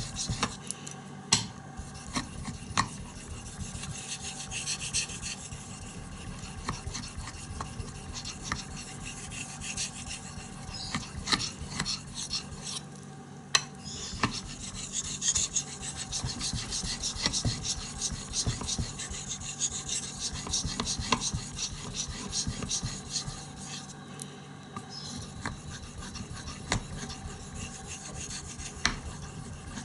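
Knife blade being sharpened on a whetstone: steady back-and-forth scraping strokes of the steel edge across the stone, with a couple of brief pauses.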